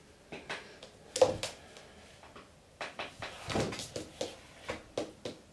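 Irregular light taps and knocks from a Thai cat playing with a wand toy. The sharpest knock comes about a second in, and a quicker run of taps follows in the second half.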